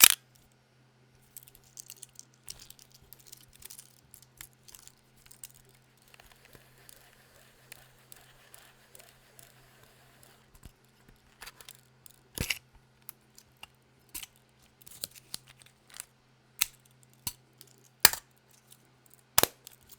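Pentax K1000 SE being unloaded. A sharp click comes at the start, then a stretch of soft rasping and small clicks as the film rewind crank is turned. Louder clicks and snaps follow later on as the back is opened and the film cassette taken out.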